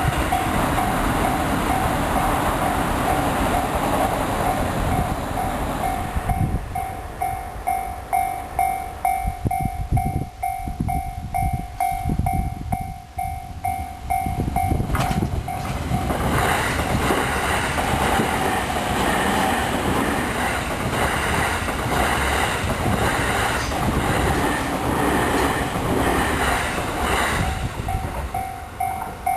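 Japanese railway level-crossing warning bell ringing in a steady repeated beat while trains run over the crossing, their wheels clattering on the rail joints. A louder train passes from about halfway in until near the end.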